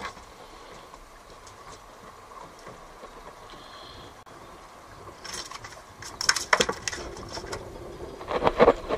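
Handling noise from fishing tackle: clicks and scrapes as gloved hands work a hook and bait, in two bursts in the second half, over a faint steady background.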